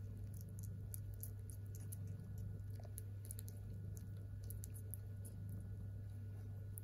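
Nursing kittens suckling, making soft, irregular wet smacking and clicking sounds over a steady low hum.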